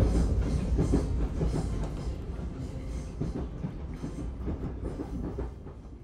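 Train running along the track, heard from inside the carriage: a steady low rumble with irregular wheel clatter, fading out gradually over the last few seconds.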